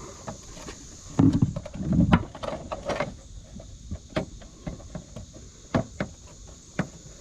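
Small plastic clicks and knocks of headlight-mounting parts being worked and lined up into place by hand, with two louder, duller thumps a second or two in.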